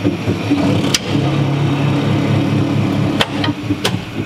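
Hydraulic press pump motor running with a steady drone that deepens about a second in, with a few sharp cracks: one about a second in and two near the end. The press is crushing a titanium bolt.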